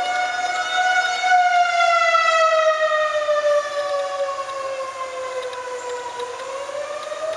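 Outdoor tornado warning sirens wailing, the civil-defense signal of a tornado warning. The tone holds steady, then slowly falls in pitch over several seconds and starts rising again near the end.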